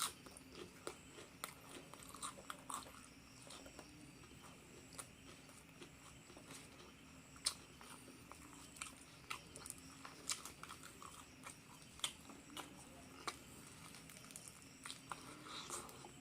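Close-miked chewing of a meal of rice and crispy fried duck: irregular short crunches and wet mouth clicks, faint overall.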